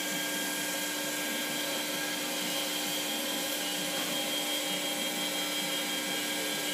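Spindle of a Southwestern Industries FHM7 CNC bed mill running at about 3,000 RPM, a steady whine of several tones over a hiss.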